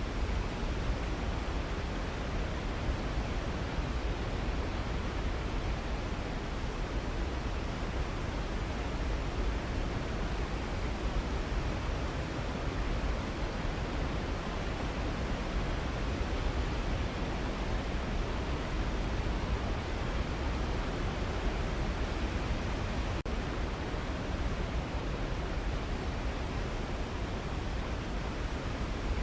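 Waterfall: water falling in a steady, unbroken rush, deep and even, with no changes.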